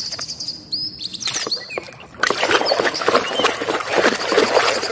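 Birds chirping in short rising and falling calls. About two seconds in, a hand starts swishing and splashing through a tub of muddy, foamy water, washing toys.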